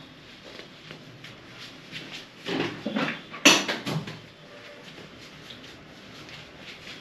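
Handling noises during wet cupping: a few brief rustles from gloved hands working with the cups and tissue, and one sharp click about three and a half seconds in, in a small room.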